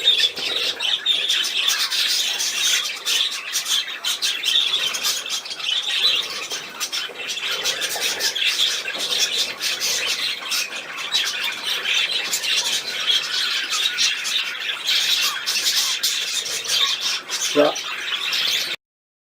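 Budgerigar chattering without a break: a dense run of scratchy chirps, squawks and clicks, cutting off suddenly near the end.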